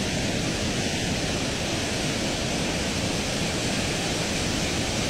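Floodwater from a swollen river rushing through a washed-out road embankment, a steady, unbroken rushing noise.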